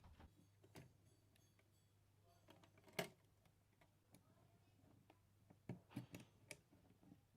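Faint, scattered clicks and taps from handling computer parts during a motherboard swap, with one sharper click about three seconds in and a few more near the end.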